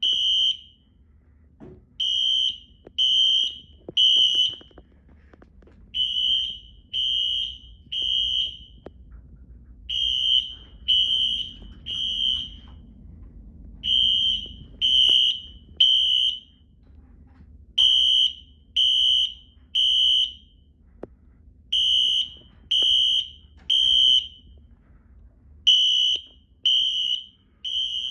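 Wheelock Exceder HSR fire alarm horns sounding a loud, high-pitched electronic beep in the temporal-3 evacuation pattern: three half-second beeps, then a pause, repeating about every four seconds. The horns are sounding because the fire alarm system is being tested.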